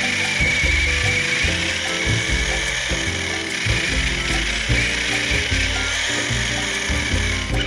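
FTX Kanyon RC crawler's electric motor and drivetrain gears whirring and grinding steadily as it drives over grass.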